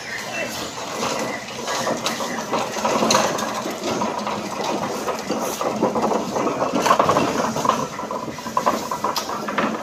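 Clattering and knocking of cardboard cartons being shifted and stacked, mixed with the rattle of a pallet jack on a concrete floor, a busy, uneven racket with many small knocks.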